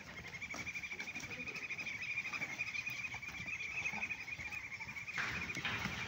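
A high, rapid pulsing trill from an animal, steady at one pitch and stopping near the end.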